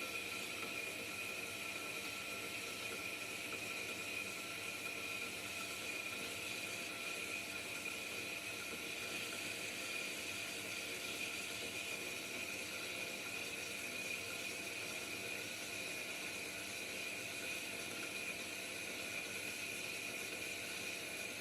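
Pilous semi-automatic metal-cutting bandsaw running, its blade steadily cutting through 5-inch solid steel round bar. A constant high whine sits over an even hiss, with no change in pace.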